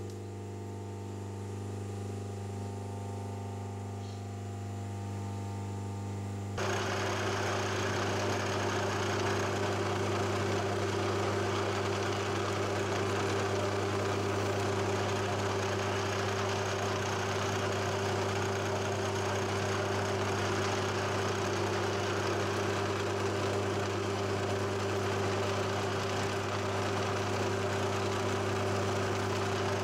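Drilling machine spindle running with a steady motor hum. About six and a half seconds in, it abruptly becomes louder as the drill bit cuts into the metal block, adding a steady hissing cutting noise over the hum.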